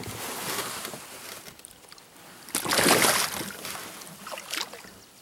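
Rainbow trout splashing at the water's surface as it twists out of the angler's hand beside the boat. There is one loud splash about two and a half seconds in, with lighter water noise before it.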